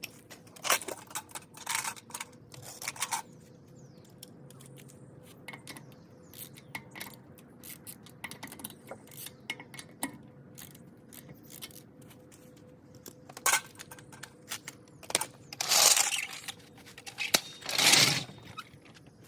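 Metal clinks, clicks and scrapes of hand work on a car wheel: tools and lug hardware being handled. Two longer scraping noises come near the end, over a faint steady hum.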